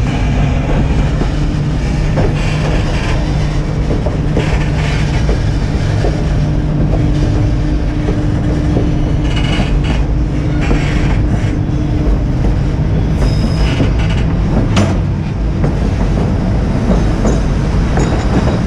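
White Pass & Yukon Route passenger train rolling along the track: a steady rumble and clatter of wheels on the rails, heard from the car's open platform.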